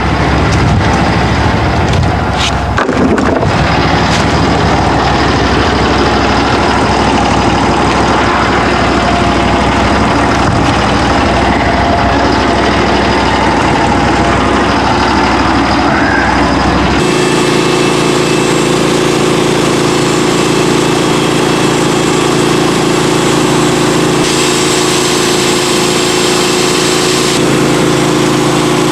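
Gas engine of a Norwood HD38 portable bandsaw mill running as the band blade saws through a red oak log, with a few sharp clicks a couple of seconds in. About seventeen seconds in the sound changes suddenly to a steadier, smoother engine tone, as the cut ends and the blade runs free.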